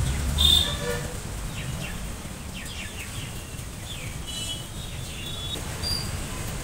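Birds chirping in short calls over a steady low rumble, with a brief louder sound about half a second in.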